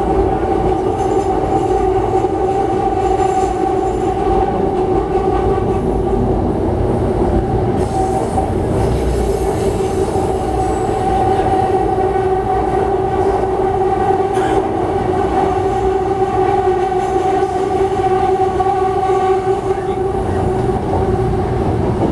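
Tren Urbano Siemens-built metro car running at steady speed, heard from inside the car: a steady hum in two held tones over continuous low wheel and track noise.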